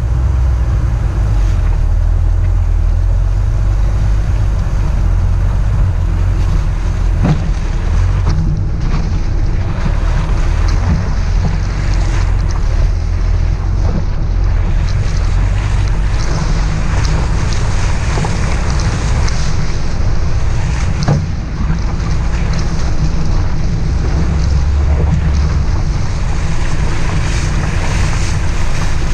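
A car driving on a rough dirt trail: steady low engine and road rumble with wind buffeting the microphone, and a few sharp knocks from the suspension and stones.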